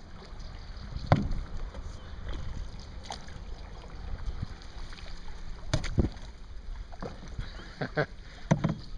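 Paddles working creek water: splashing and dripping from the strokes, with a few sharp knocks, over a steady rumble of wind on the microphone.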